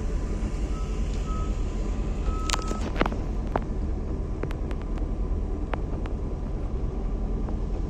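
Car idling at a standstill, a steady low rumble heard from inside the cabin. There are three short beeps at one pitch in the first three seconds, the last one longer, and scattered sharp ticks after that.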